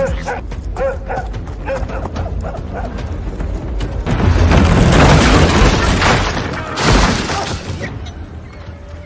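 Film action soundtrack: music with a run of short, evenly spaced cries in the first two seconds, then a long loud rush of noise from about four seconds and a hard knock near seven seconds.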